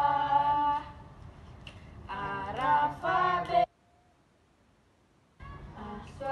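Young voices singing unaccompanied, a cappella, in sung phrases. The singing breaks off abruptly about three and a half seconds in, drops to near silence, and starts again about a second and a half later.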